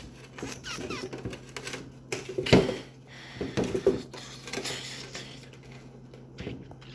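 Irregular taps, knocks and rubbing from handling near a tiled floor, hand and phone moving while grabbing at a loose cricket, with one louder knock about two and a half seconds in. A faint steady low hum sits underneath.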